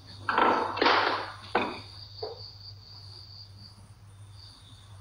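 Crickets chirping steadily in a high pulsing trill over a low electrical hum. In the first two seconds a few louder scraping noises end in a sharp knock about a second and a half in.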